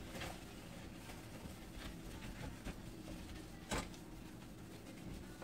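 Faint rubbing and light taps of a hand and cloth on a stainless-steel gas stovetop while it is wiped, with one sharper click a little before four seconds in.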